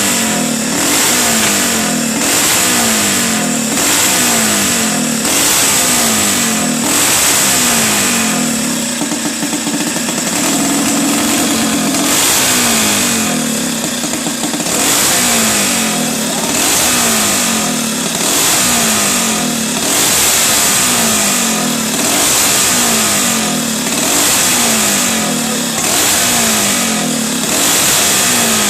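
A motor vehicle's engine revving up over and over, its pitch climbing and then dropping back about every two seconds. Around ten seconds in it holds a steadier note for a few seconds.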